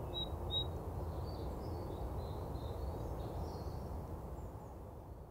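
Outdoor ambience: a steady low background noise with birds chirping, two short high chirps about half a second in, then fainter calls, fading out near the end.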